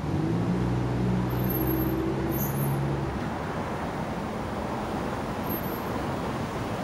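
Street traffic: a motor vehicle's engine comes in loud and steady, holds for about three seconds, then fades, over a constant wash of road noise.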